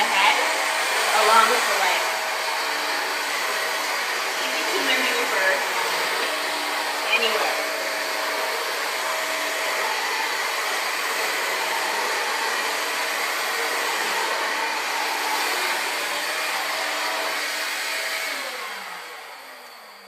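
Hoover Air Cordless battery-powered upright vacuum running on carpet: a steady motor whine with airflow hiss. Near the end it is switched off and the motor winds down, its pitch falling as it fades.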